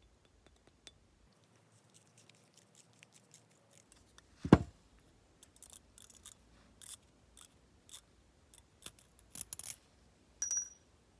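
Small metal parts and tools clicking and tapping during hands-on work on a vintage lighter, with one sharp knock about four and a half seconds in and a brief metallic ping near the end.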